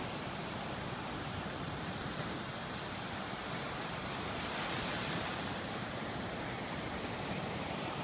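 Ocean surf breaking and washing up a sandy beach: a steady rushing wash that swells a little about halfway through.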